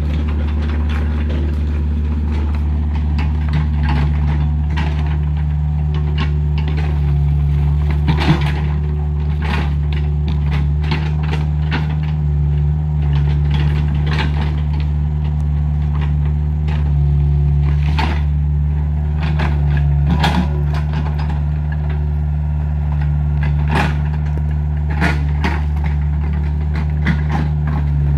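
Heavy diesel engine running steadily with a deep drone, with scattered knocks and clatter, the loudest at about 8, 18 and 20 seconds in.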